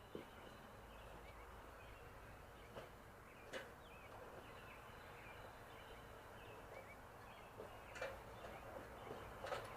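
Faint birds chirping in short repeated calls over a low background hum, with a few light clicks and knocks, one about three and a half seconds in and a couple more near the end.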